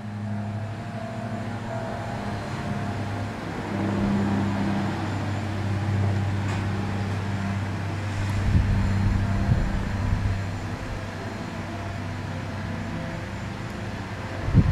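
A steady low mechanical hum, with wind buffeting the microphone in gusts about eight to ten seconds in.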